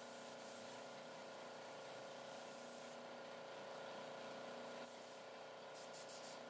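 Compressed-air gravity-feed spray gun hissing faintly as it sprays primer. The hiss stops about three seconds in, then comes back in a short spurt and a few brief bursts near the end. A steady faint hum runs underneath.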